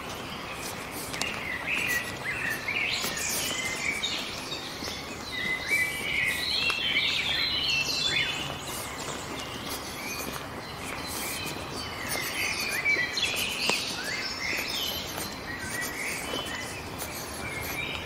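Woodland birdsong: several small songbirds chirping and trilling in short, overlapping phrases throughout, over a steady background hiss.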